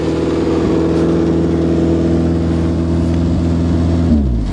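Chevrolet car engine idling steadily just after a cold start at minus 16 °C. About four seconds in it is switched off, and its pitch drops as it winds down to a stop.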